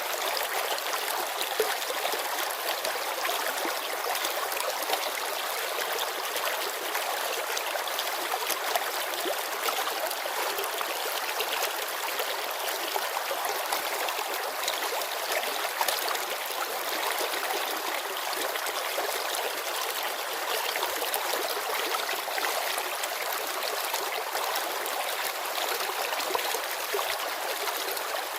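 Mountain river flowing and babbling over stones, a steady rushing of water with many small splashes.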